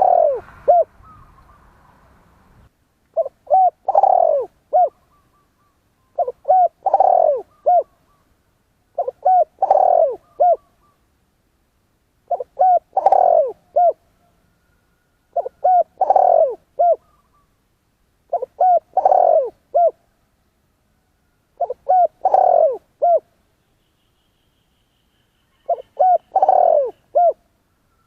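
Spotted dove cooing: a short phrase of several clipped coos around one longer, stronger coo, repeated about every three seconds, eight times over.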